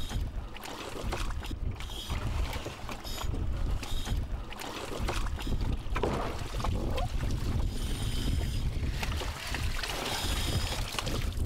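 Wind rumbling on the microphone over water splashing and streaming as a scuba diver climbs out of the sea onto a small polyethylene boat's fold-down boarding ramp, with a burst of splashing and dripping near the end.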